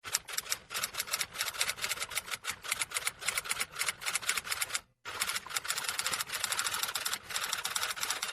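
Typing sound effect: rapid key clicks in two runs, with a short break about five seconds in.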